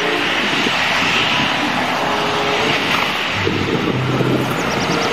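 Jet engines of a Citilink Airbus A320 airliner running steadily as it rolls along the runway, a loud, even jet rush.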